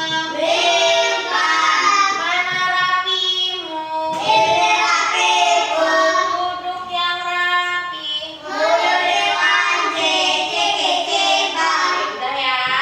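Children singing a song, sustained sung notes changing in pitch.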